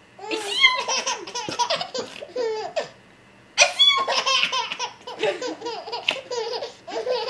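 Baby laughing hard in two long bouts of giggles, with a short pause about three seconds in.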